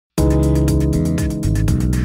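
Background music with held bass and chord notes over a steady beat, starting suddenly just after the beginning.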